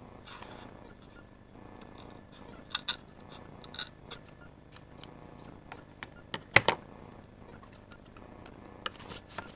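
Small knife blade cutting and scraping thin crate wood by hand, giving a scatter of short clicks and scrapes at irregular intervals, the loudest a sharp click about two-thirds of the way through.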